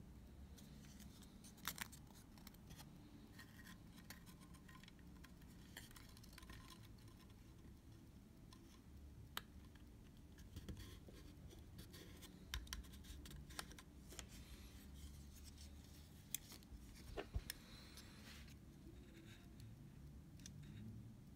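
Faint, scattered small clicks and short scrapes from hand work on the camera, with tools and small parts being handled, over a low steady hum.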